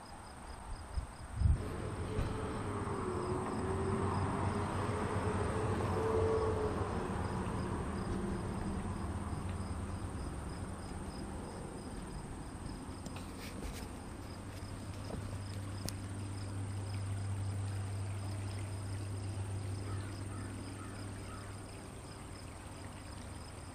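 Crickets chirping steadily in a quick, even pulse over a low steady hum. A rushing sound swells and fades over the first several seconds.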